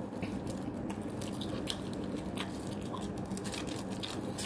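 A person biting into and chewing a piece of fried chicken: a run of small, irregular crunches and mouth clicks, over a faint steady low hum.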